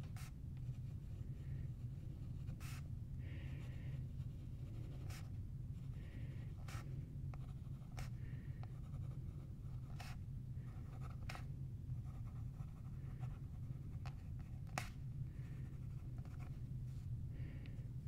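Pen writing on paper: soft scratchy strokes broken by irregular sharp ticks every second or two, over a steady low hum.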